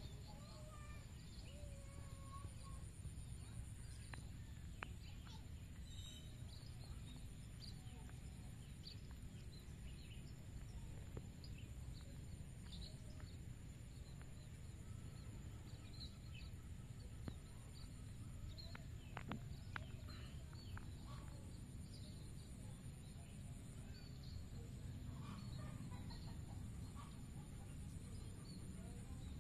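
Faint rural outdoor ambience: scattered short bird calls and clucks of fowl over a steady low rumble, with a constant high-pitched hum running underneath.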